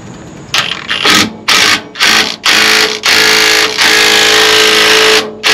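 Power tool running in a series of short bursts, then one longer run of over a second, working loose the rusted clamp bolts of an old RV rear suspension airbag.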